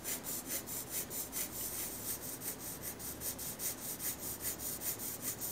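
2B graphite pencil shading on 200 g drawing paper: a soft scratching rub in short, even strokes, about five a second.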